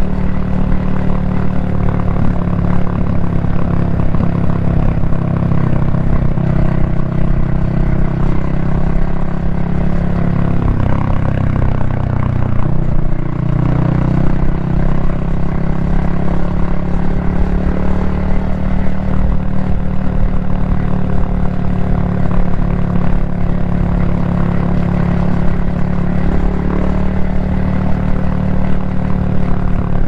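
Yamaha XSR155's 155 cc single-cylinder engine and exhaust running at a steady cruise, heard from the rider's helmet. The engine note dips briefly about midway, then settles back to a steady pitch.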